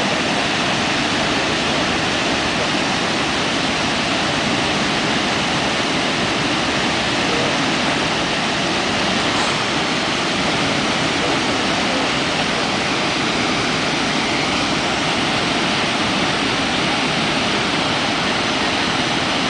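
Steady, loud rush of water pouring over Brooks Falls, a broad waterfall on the Brooks River.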